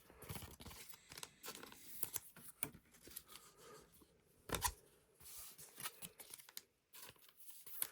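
Faint crinkling and rustling of a foil Pokémon booster-pack wrapper and trading cards being handled, with scattered small clicks and a sharper snap about four and a half seconds in.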